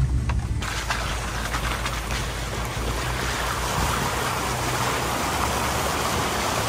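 Off-road vehicle driving on a wet, muddy trail in the rain: a low engine hum under a steady hiss of rain and wet tyres. The hiss comes in abruptly about half a second in.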